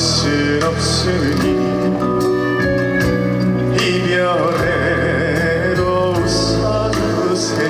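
Amplified trot music from a live stage, probably an instrumental passage of the song: a steady drum beat under sustained chords, with a melodic lead line gliding in pitch over it.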